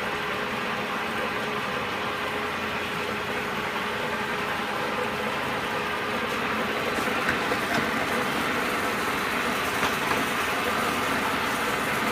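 Cincinnati Bickford Super Service drill press running steadily under power, its 3-horsepower motor and gearing making an even mechanical hum with a steady tone, with the feed set to four thousandths per revolution. A few faint ticks come through in the second half.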